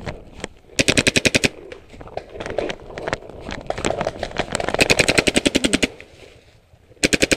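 Paintball marker firing in rapid bursts of about a dozen shots a second: a short burst about a second in, a longer one around the middle, and another starting near the end.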